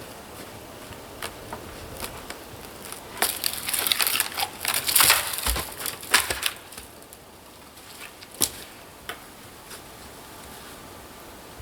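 Handling noises: a dense run of crackling, rustling and sharp clicks about three to seven seconds in, with scattered single clicks before and after.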